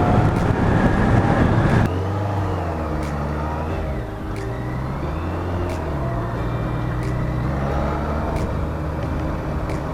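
BMW K100RS inline-four engine running under way, over wind noise. It is louder for the first two seconds, then drops abruptly, and its pitch rises and falls with the revs.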